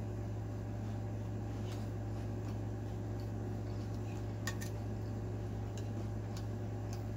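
A fork clicking and scraping against a food platter as it scoops up noodles and rice, with a few light clicks and one sharper one about halfway through. Under it runs a steady low electrical hum.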